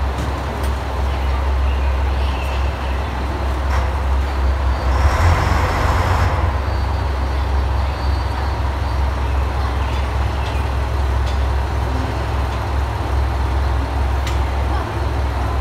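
Diesel railcar engines idling with a steady low rumble as two cars are brought together for coupling. About five seconds in there is a short hiss of released air, lasting a second or so.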